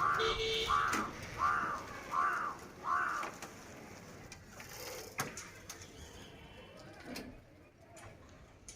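A bird calling five times in quick succession, each call a short arching note, followed by a couple of sharp clicks.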